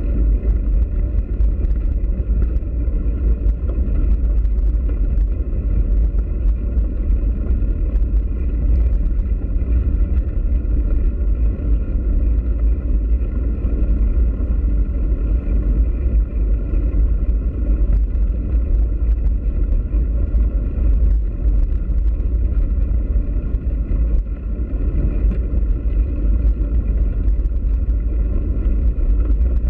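Bicycle ridden along a dirt track: a steady low rumble of wind on the bike-mounted camera's microphone and tyre noise over the dirt, with scattered faint ticks.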